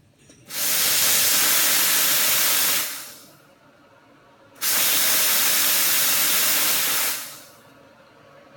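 Steam wand of an Iberital L'anna single-group espresso machine opened twice, each time letting out a loud, steady hiss of steam for about two and a half seconds before being shut off.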